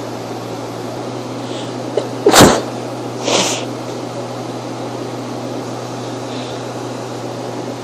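A sneeze in a run of sneezes: one sharp, loud sneeze a little over two seconds in, followed about a second later by a softer, breathy one. A steady low hum runs underneath.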